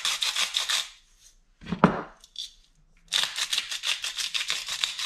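Hand-twisted salt grinder grinding over a tub of flour in quick, even crunching strokes, about seven a second, stopping just before a second in. A single sharp knock comes near two seconds in, then a pepper grinder grinds in the same quick rhythm from about three seconds in.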